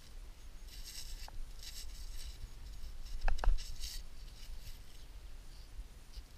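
Gloved hands rubbing and turning a rusty, soil-caked artillery shell, making short bursts of scraping and rustling, with a couple of brief squeaks about a second and three seconds in.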